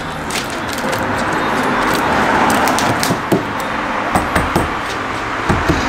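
Adhesive tape pulled and pressed onto a Hyundai Veracruz's rear quarter panel, then a run of sharp knocks as a fist raps the body near the rear wheel arch. The knocks are a test to reproduce the rattle being chased in the rear underbody.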